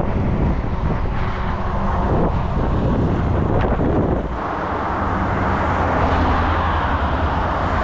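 Steady road traffic noise mixed with wind on the microphone, with a low engine hum; the sound changes abruptly about four seconds in to a steadier low rumble.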